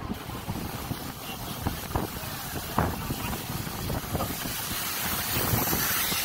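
Irregular footsteps knocking on wooden deck boards. A high hiss of spraying water, typical of a pressure washer, grows louder over the last second or two.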